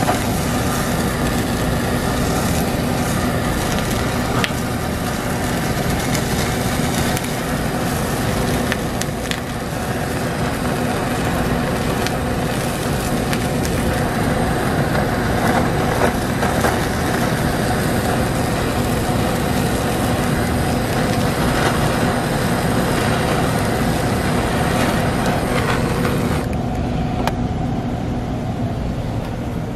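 Handheld butane kitchen torch running with a steady rushing hiss as it sears the tops of nigiri sushi, over a steady low machine hum. The torch goes off a few seconds before the end, leaving the hum.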